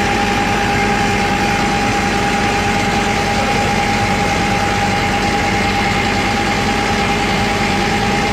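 A fuel truck's pump and meter unit running steadily: a constant mechanical hum with a high, steady whine.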